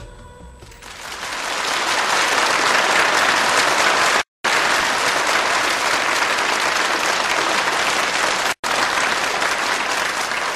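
Large audience applauding, the clapping swelling in about a second in and then holding steady. The sound cuts out twice for a split second.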